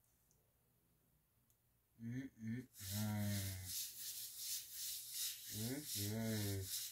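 A man humming a low, closed-mouth "mmm" of enjoyment while eating. Two short hums come about two seconds in, then longer drawn-out hums that bend in pitch.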